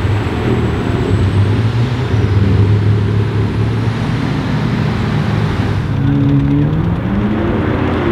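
McLaren twin-turbocharged V8 engines driving by with a deep, steady exhaust note; about six seconds in, a car's engine note climbs in pitch as it accelerates.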